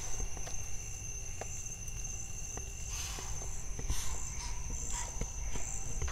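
Night insects (crickets) trilling steadily in a high, even tone, with a few faint knocks and a brief soft hiss about three seconds in.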